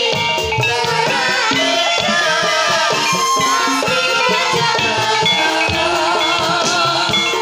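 Javanese gamelan music for a kuda kepang (ebeg) horse dance: metallophones ringing a melody over steady hand-drum strokes, with a wavering melody line on top.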